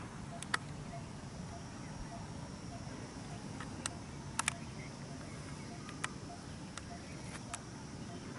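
Quiet outdoor ambience: a faint steady hiss with a thin high steady tone, broken by about six short sharp clicks, two of them close together about four and a half seconds in.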